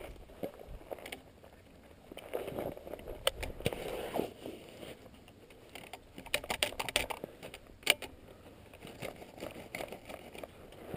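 Tikka T3 bolt-action rifle being handled: soft rustling, then a quick run of clicks about six to seven seconds in and one sharp click near eight seconds. No shot is fired.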